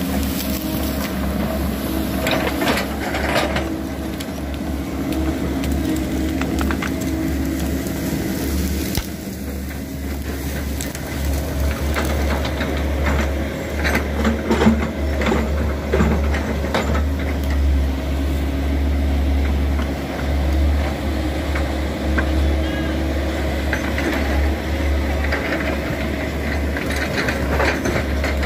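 Diesel engines of Sany crawler excavators running close by with a steady low hum, with scattered knocks and crackles from the machines working over mud and branches.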